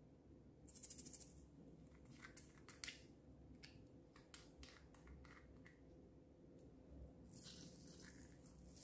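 Faint handling of a small plastic pot of tiny beads: a quick rattle of clicks about a second in, then scattered light clicks and taps. Near the end comes a soft hiss as the beads are shaken out onto the slime.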